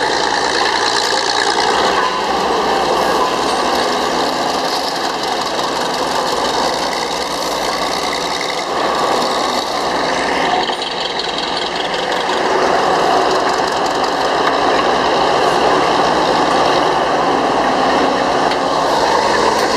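Northwest Model 6 cable shovel with mechanical controls working a dig cycle: its diesel engine running under load with a dense, steady mechanical din from the machinery as the dipper digs, lifts loaded and is lowered again.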